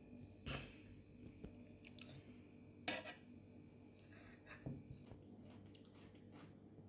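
Quiet eating sounds at a breakfast table: a few soft clicks and clinks, the sharpest just before three seconds in, with others about half a second in and near five seconds.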